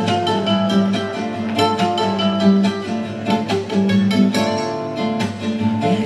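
Live band music with no singing: an instrumental huayno passage led by quickly picked guitar notes.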